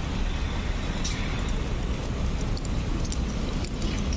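Steady city street traffic noise: cars running on the road, with a constant low rumble.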